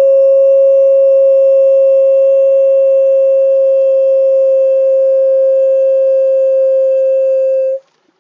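A single steady held tone with fainter higher overtones, cut off suddenly near the end.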